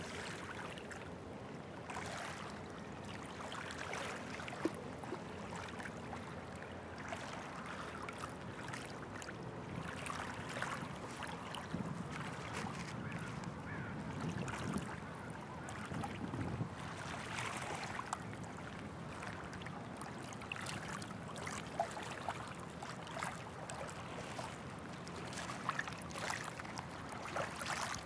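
Small waves lapping at the water's edge with light wind, over a faint steady low hum.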